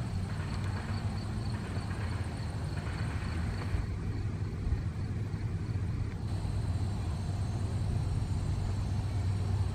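Steady low rumble of a vehicle running.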